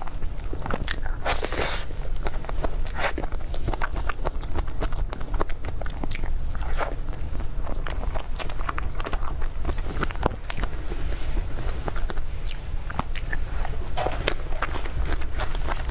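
Close-miked eating sounds: irregular wet bites, chewing and mouth clicks of soft strawberry dessert, over a steady low hum.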